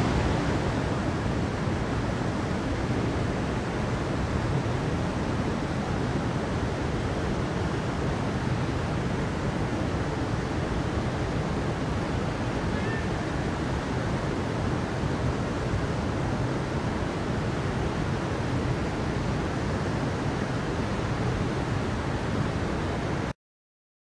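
Steady rushing of water, an even, unbroken noise that cuts off abruptly near the end.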